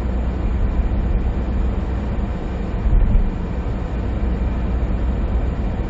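Cabin noise of a 2020 SsangYong Rexton Sports pickup's 2.2-litre diesel and tyres cruising on the highway: a steady low rumble, with a single low thump about three seconds in.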